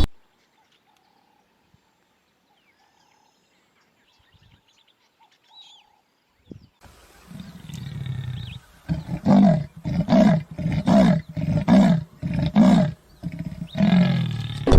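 Big cat roaring: after a near-silent start with a few faint chirps, a rising call from about seven seconds leads into a run of about eight short, evenly spaced low calls, roughly two a second.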